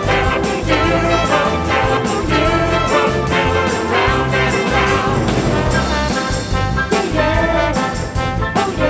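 Instrumental break of an orchestral children's pop song: brass, including trombone and trumpet, over a steady beat, with no singing.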